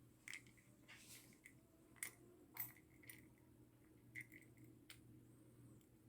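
Faint, irregular small metallic clicks and clinks, about seven in all, from the parts of a Brady ABUS 7140 lockout padlock being handled and fitted during reassembly, over a steady low hum.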